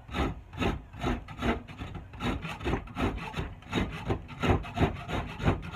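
A small hand shaping tool scraping along a bitternut hickory axe handle in quick back-and-forth strokes, about two to three a second, cutting down a high spot on the handle's rounded palm swell.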